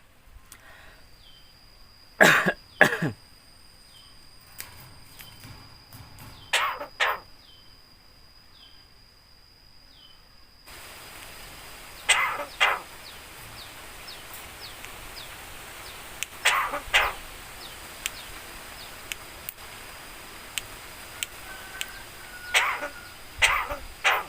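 Javan myna (jalak kebo) mimicking a human cough: short coughs, mostly in pairs, repeated about five times, with faint short chirps between them.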